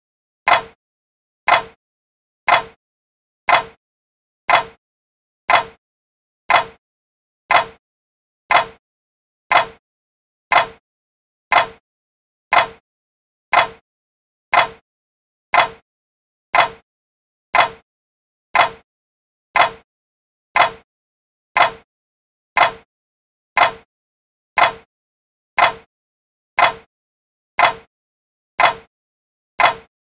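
Clock ticking: one sharp tick about every second, evenly spaced and all alike, with silence between the ticks.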